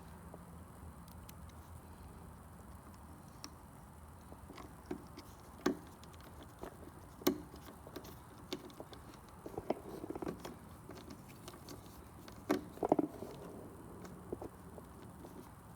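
Screwdriver driving the screws of a garage door opener's sprocket cover: scattered clicks and taps of tool and parts, with a few louder knocks.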